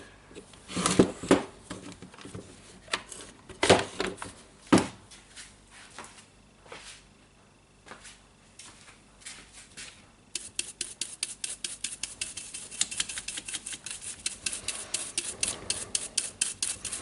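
Hand work on a disassembled cordless jigsaw: a few sharp knocks and clatters of parts and tools, then, from about ten seconds in, a fast, even run of small clicks, about seven a second.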